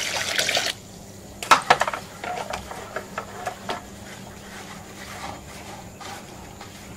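Wet ground tiger nut mash poured from a plastic bowl into a cloth strainer with a short slosh, then a few sharp clicks and knocks about a second and a half in. After that, soft faint wet squelches as the cloth bag of pulp is squeezed to press out the milk.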